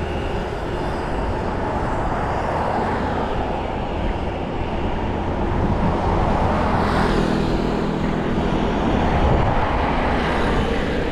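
Road traffic noise heard from a moving bicycle: a steady rush of passing vehicles, with one swelling past about seven seconds in.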